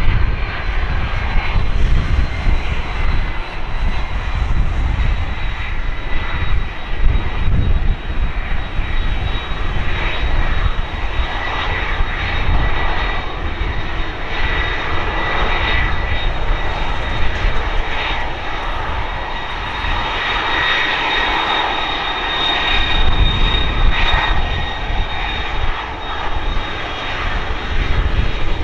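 Airbus A330-300 airliner's General Electric CF6 turbofan engines running at low taxi power as the jet rolls slowly past after landing. A steady high whine sits over a dense, rumbling jet noise.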